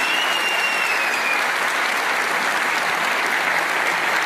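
Large audience applauding in a big hall: dense, steady clapping. A faint high whistle slides slightly down during the first second or so.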